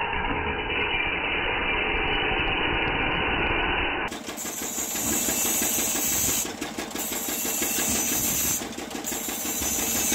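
Belt-driven grinding wheel running steadily as it grinds the teeth of a bandsaw blade. The first few seconds sound muffled. From about four seconds in, a shrill grinding hiss sounds over the motor drone and breaks off briefly twice.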